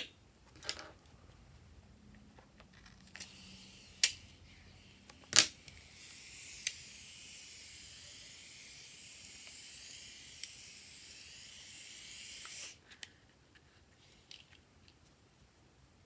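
White foam hissing steadily as it is squeezed out of the neck of a rubber balloon, with a few sharp clicks early on. The hiss cuts off suddenly near the end.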